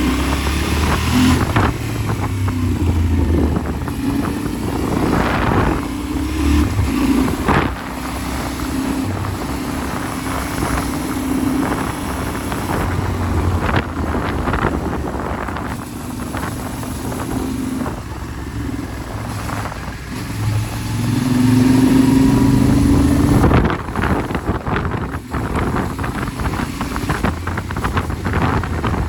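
Yamaha Ténéré 700's parallel-twin engine running under way, its revs rising and falling with the throttle, with the loudest climb in revs a little past two-thirds of the way through. Wind buffets the microphone and sharp knocks and clatters come through throughout.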